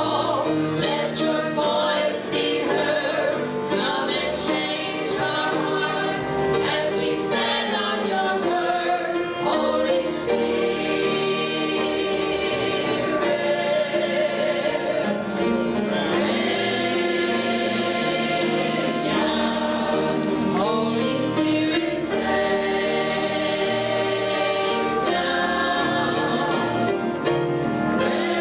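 A group of women singing a gospel worship song together in harmony, through microphones and a sound system.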